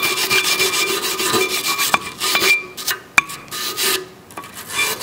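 Hand wire brush scrubbing the steel pad slides of a rear disc-brake caliper bracket clean, in quick back-and-forth strokes, with a couple of short pauses near the end.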